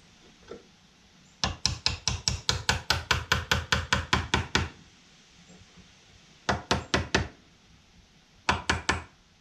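Quick light hammer taps on a tractor engine's steel connecting rod clamped in a bench vise, seating its new bearing insert: a fast run of about six taps a second for three seconds, then two shorter groups of four or five taps.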